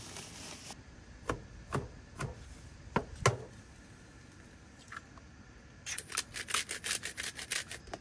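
Eggs being cracked for scrambling, a few separate sharp taps, then the eggs beaten in a plastic tub, a quick run of clicking strokes for about two seconds near the end.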